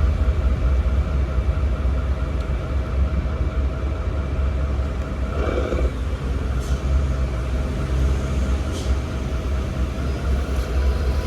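Radio-controlled construction models running: a steady low motor rumble with a constant whine above it, rising briefly about halfway through, with a couple of faint clicks.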